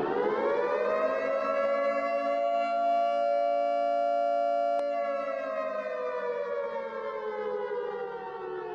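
Air-raid siren sound effect: a wailing tone finishes its rise, holds steady for a few seconds, then slowly winds down in pitch.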